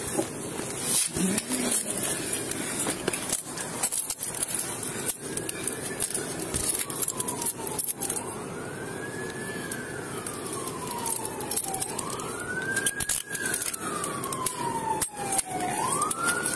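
An emergency-vehicle siren wailing, fading in about five seconds in. Each cycle rises quickly and falls slowly over about three to four seconds. Close-up rustling and knocks of hands grabbing clothing run under it.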